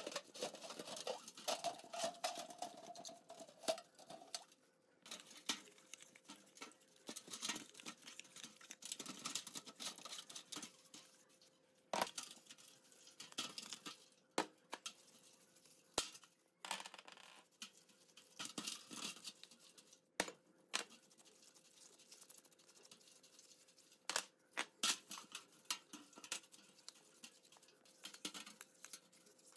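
Bristle brush scrubbing an aluminium impact wrench housing in a steel tray of cleaning liquid: irregular scratchy brushing and small splashes, with a few sharp knocks of the metal part against the tray.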